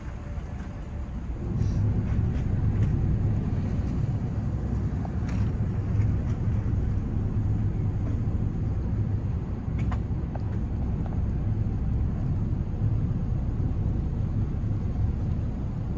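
Supercat-class catamaran ferry's diesel engines running under power as it pulls away from the wharf: a steady low drone that grows louder about a second and a half in, then holds.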